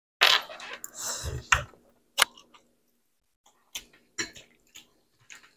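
Close-miked eating sounds from a mukbang of spicy noodles: a hissy slurp of noodles beginning about a quarter second in and lasting over a second, followed by scattered wet chewing and lip-smacking clicks.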